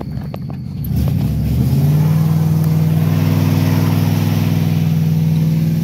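Ford 4.6-litre two-valve V8 of a 1997 F-150 revving up about a second in, then held at a steady high pitch under throttle.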